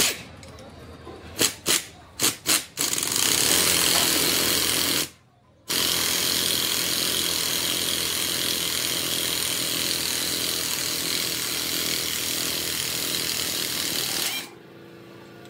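Four short knocks, then a power tool running steadily in two runs: a short one, a half-second stop, and a long run that cuts off near the end.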